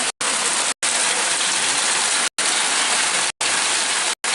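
Heavy rain pouring down, a loud steady hiss, broken five times by split-second dropouts where the sound cuts out completely.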